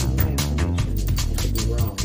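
Electronic background music with heavy bass and a steady, fast beat.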